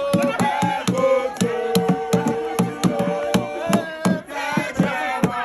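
Music with a quick, steady percussive beat under a held, sung or played melody.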